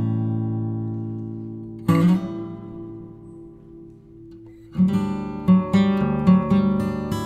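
Background music on acoustic guitar. Chords are left to ring and fade, with a new chord about two seconds in; from about five seconds in come quicker plucked notes.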